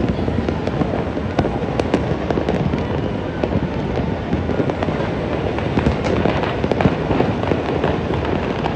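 Dense, continuous barrage of fireworks and firecrackers, many sharp overlapping bangs and crackles with no pause.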